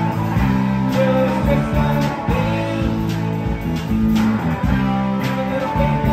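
Live band playing: electric guitars and bass guitar over a drum kit keeping a steady beat, with a guitar bending notes up and down.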